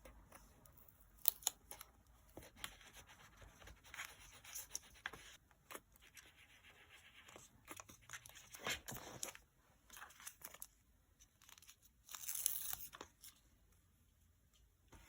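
Paper and stickers handled close up for journal decorating: small taps and crinkles throughout, with a short tearing sound about twelve seconds in.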